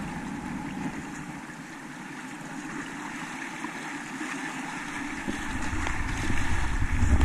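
Rushing whitewater of a small river running high, heard close up from a kayak, with a steady splashing hiss. About five seconds in it grows louder and gains a low rumble as the boat enters rougher water.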